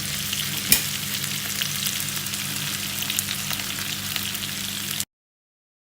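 Pan of cream chicken sizzling steadily, with one sharp click about a second in. The sound cuts off abruptly about five seconds in.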